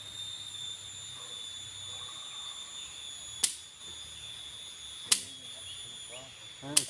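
Steady high-pitched insect drone from the surrounding forest: one pure tone with fainter overtones above it. Three sharp clicks come about a second and a half apart.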